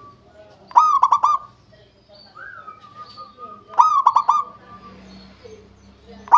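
Zebra dove (perkutut) cooing: two bursts of rapid staccato coos about three seconds apart, each a quick run of four or five clipped notes, with faint softer notes between them.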